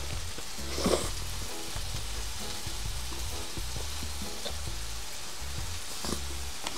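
Two bites into a large hamburger, about a second in and again near the end, over a steady sizzling hiss from meat cooking on a grill. Background music with a repeating bass line plays throughout.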